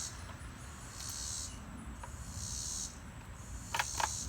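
Insects chirring outdoors in high-pitched pulses that come and go about every second and a half, with two short clicks near the end.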